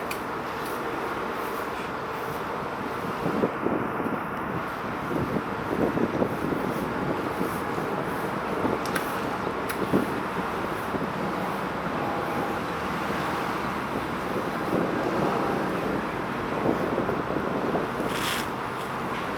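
Steady road traffic noise with wind on the microphone, swelling briefly now and then.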